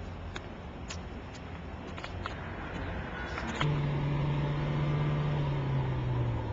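Car engine running with a steady low hum. About halfway through it gets louder, with a clear engine note that then slowly drops in pitch. Faint scattered clicks sound throughout.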